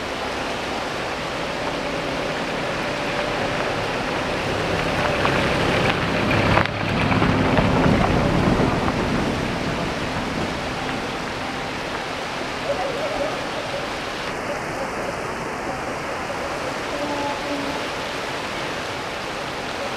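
Rushing water from a fast-flowing stream, a steady hiss that swells louder for a few seconds about a third of the way in.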